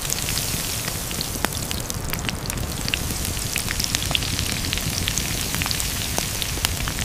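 Campfire crackling, with frequent sharp pops over a steady hiss.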